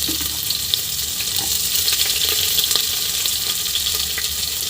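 Hot oil sizzling and crackling in a pressure cooker with dried red chilies frying in it, a steady hiss dotted with small pops.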